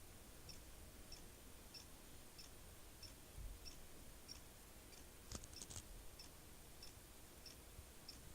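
All-in-one PC giving off a faint, regular clicking, about one click every 0.6 s, with a quick cluster of three sharper clicks about five and a half seconds in. It is the abnormal 'kashu, kashu' noise that came before the computer's failure.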